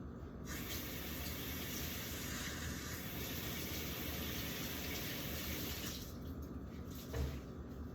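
Water running from a tap into a sink, a steady hiss that starts about half a second in and is shut off about five seconds later. A short low thump follows near the end.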